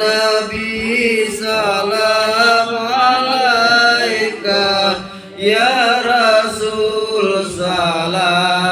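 A man chanting salawat, Arabic devotional verses in praise of the Prophet, into a microphone through a PA. He sings long, wavering held notes, with a short break for breath about five seconds in.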